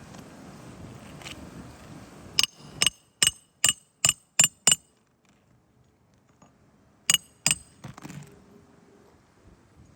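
Nails being driven during roof repair: seven quick, sharp metallic strikes in an even rhythm, a pause, then two more strikes.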